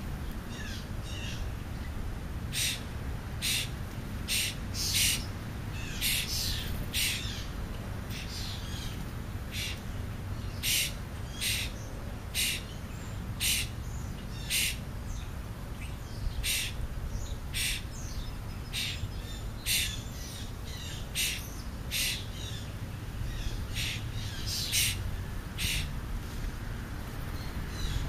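A crow cawing: a long run of short, harsh calls, roughly one a second with uneven gaps, over a steady low rumble.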